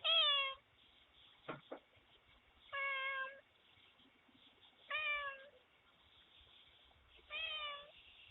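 A domestic cat meowing four times, each meow about half a second long and mostly falling in pitch, spaced about two seconds apart, picked up by a doorbell camera's microphone.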